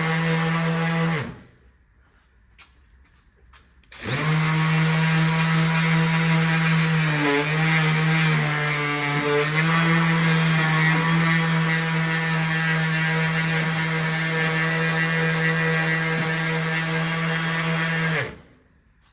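Handheld electric power tool running a red Scotch-Brite pad over the bandsaw's cast iron table, a steady hum. It winds down and stops about a second in, starts again about four seconds in, dips briefly in pitch around eight seconds in, and winds down near the end.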